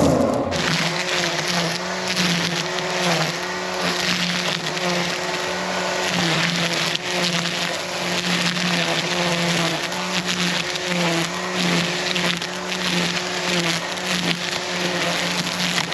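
Echo eForce 56V battery-powered string trimmer running and cutting, with a hiss of debris over the motor hum. The motor's pitch dips and recovers again and again as the line takes load.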